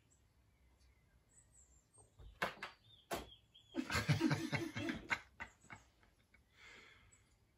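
A cat's paws striking and scrabbling against a flat-screen TV as it leaps at a bird on the screen: two sharp knocks, then a rapid flurry of thuds and scratching, dying away to a soft rustle. Faint birdsong plays from the TV.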